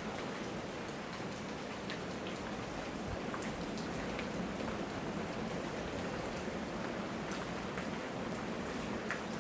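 Steady tropical rain falling, an even hiss with scattered separate drops tapping close by.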